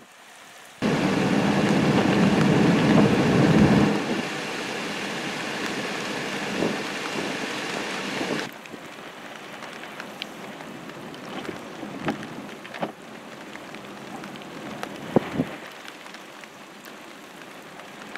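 Freezing rain and sleet falling on ice-glazed surfaces, a steady hiss of precipitation. It starts abruptly, is loudest for the first few seconds, then drops in level twice, with scattered sharp ticks of pellets in the quieter stretch.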